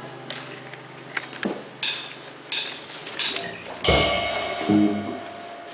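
A drum kit struck in a few scattered hits, the loudest a ringing cymbal crash about four seconds in, with a tom hit just after it. A held low instrument note fades out at the start.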